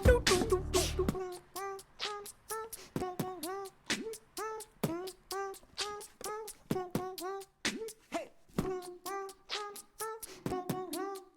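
Background music: short, repeated vocal-like notes with bending pitch and sharp clicks in a steady rhythm. The deep bass drops out about a second in.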